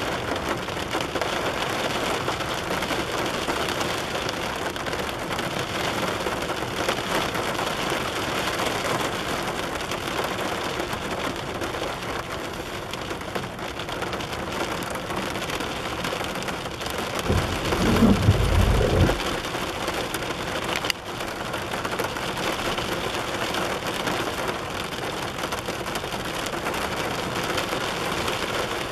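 Steady rain pattering on a car's roof and windows, heard from inside the car. About two-thirds through, a low rumble rises for about two seconds and fades.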